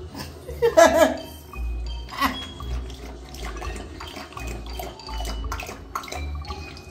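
A bully-breed dog lapping water from a bowl in quick, repeated laps, with background music. A brief, loud pitched sound comes about a second in.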